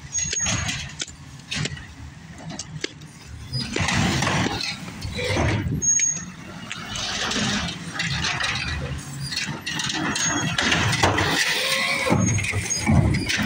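Natural-gas automated side-loader garbage truck running as it moves along the street, with a few short, high brake squeaks. Near the end its hydraulic arm grips and lifts a curbside green waste bin.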